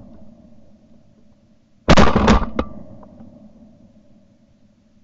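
A loud shotgun shot about two seconds in, with a short echo trailing off.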